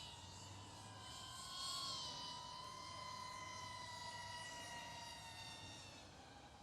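iFlight ProTek35HD cinewhoop drone's brushless motors and propellers whining in flight. The pitch rises slightly about two seconds in, then slowly falls as the throttle eases.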